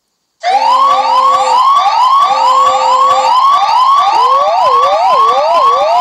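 Emergency alert siren from a UAE EAS alarm video: rapid rising whoops repeated a little over twice a second, with a steady low tone sounding twice underneath. About four seconds in, a slower wavering siren tone joins.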